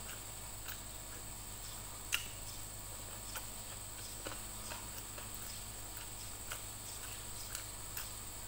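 Close-up eating sounds: wet chewing and lip smacks in scattered, irregular soft clicks, the sharpest about two seconds in, over a faint steady high-pitched hum.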